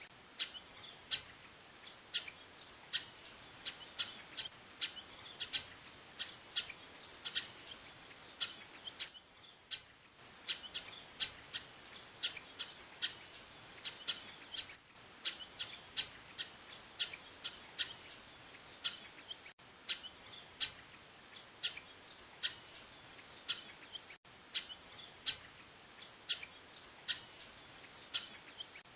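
Female chestnut-capped blackbird (garibaldi) calling over and over: short, sharp calls at about two a second, with a brief pause about a third of the way in. A steady high-pitched drone runs underneath.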